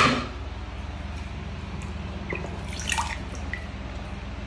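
Water dripping and small splashes as wet plastic toy cars are handled and lifted out of a tub of water. A sharp knock comes right at the start, and a steady low hum runs underneath.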